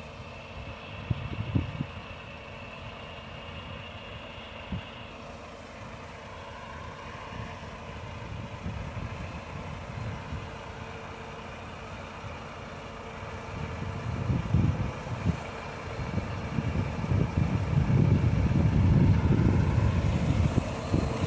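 Fendt tractor and a second tractor running while pulling a Vlaming bulb harvester that is lifting tulip bulbs: a steady engine drone with machinery hum. It grows louder with rough low rumbling in the last several seconds.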